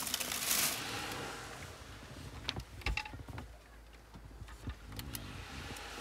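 A small wooden folding table being handled and set up on a car's cargo floor: a rustling swish at the start, then several sharp clicks and knocks around the middle as it is unfolded and put down, with a few lighter knocks later.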